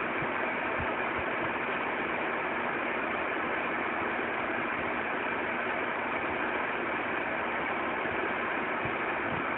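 Vornado EV100 evaporative humidifier's fan running on high: a steady, even whoosh of air that is moderately loud but not harsh.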